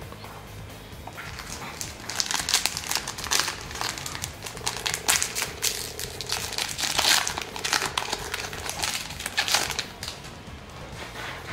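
Foil wrapper of a trading-card booster pack crinkling as it is torn open by hand: a dense crackling rustle that starts about two seconds in and dies away near the end.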